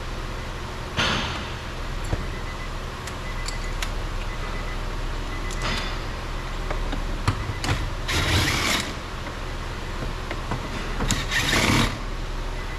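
Hand-tool and handling noise from work on a car door: four short scraping bursts, the longest and loudest about two-thirds of the way in, over a steady low hum.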